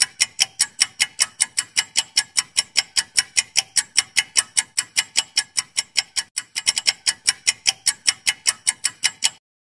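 Clock-ticking sound effect of a quiz countdown timer: rapid, even, sharp ticks at about five a second that stop abruptly just before the end.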